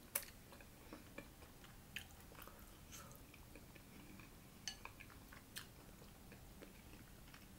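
Faint chewing of taco soup, with scattered quiet clicks of a metal spoon against a glass bowl, the sharpest a little after the middle.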